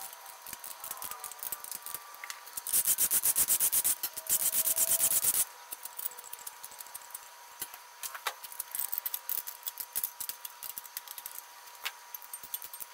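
Socket ratchet spun rapidly in two runs of fast, even clicking, about three seconds in, backing out the main bearing cap bolts of an engine block. Scattered light metal clinks follow as the loose bolts and caps are handled.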